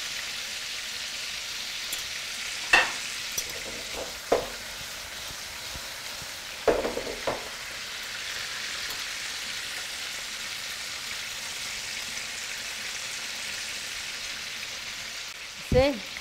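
Steaks frying in hot olive oil with garlic in a nonstick pan: a steady sizzle. A few short, louder sounds break in about three, four and seven seconds in.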